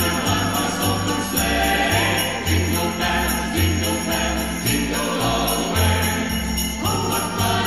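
Small brass band playing a Christmas tune: cornets and tenor horns carry the melody over a tuba bass line that steps between long low notes.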